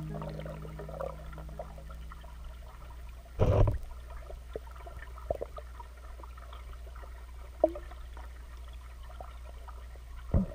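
Pool water heard through an underwater camera: a low steady hum with faint crackling and scattered clicks, and a short loud rush of water about three and a half seconds in. Another rush starts right at the end.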